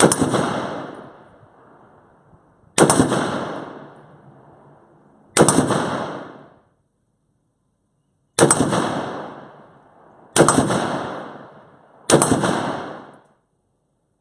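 Six rifle shots, spaced about two to three seconds apart, each sharp crack dying away over a second or so.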